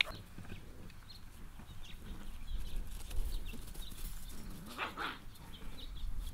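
Spaniel puppies making small, high-pitched squeaks and whimpers, with one louder whine about five seconds in.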